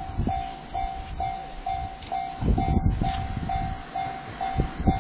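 Japanese level-crossing warning bell ringing, an electronic ding repeating about twice a second, over the low rumble of a train running past with a few clacks of wheels on the rails.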